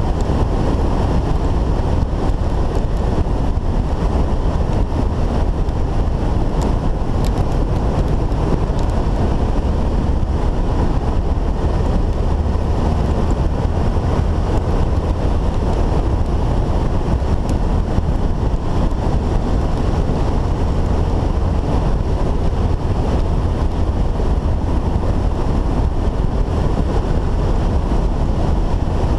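Heavy wind buffeting on the microphone of a motorcycle-mounted camera at riding speed, over the steady running of the motorcycle's engine and tyres on a dirt road.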